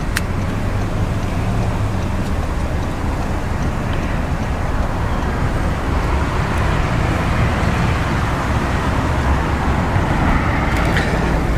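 Steady low rumbling noise without a clear pitch, with a sharp click at the start and a few light clicks near the end.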